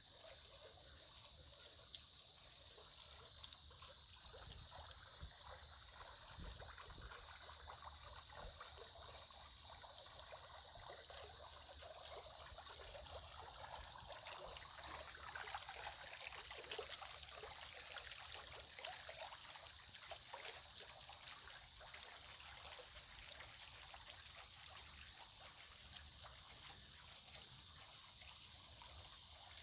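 Water trickling and splashing softly, busiest around the middle, with a steady high-pitched insect chorus over it.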